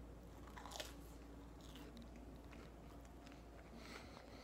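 Faint chewing of a mouthful of food, with a few quiet clicks scattered through it.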